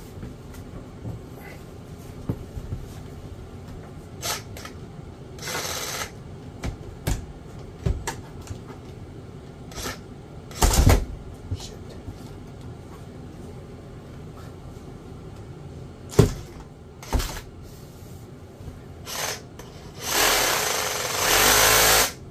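Scattered knocks and clatter of handling, then a reciprocating saw (Sawzall) runs for about two seconds near the end, cutting.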